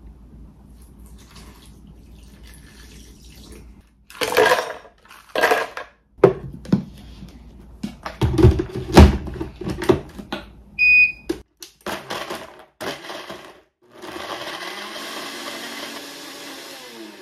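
Knocks and clatter of kitchen work, with a short electronic beep about eleven seconds in. From about fourteen seconds a countertop blender runs steadily, then winds down as it is switched off near the end.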